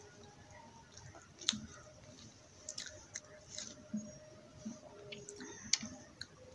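Eating by hand: fingers squishing rice and potato curry against a plate, and wet chewing, heard as scattered short smacks and clicks.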